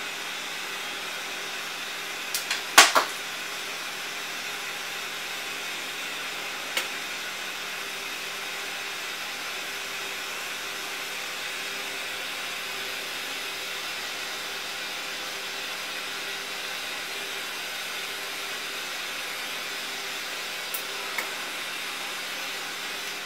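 Glassworking gas torch hissing steadily as it heats the neck and moil of a piece on the blowpipe, with a faint hum under it. A few sharp clicks sound over it, the loudest about three seconds in.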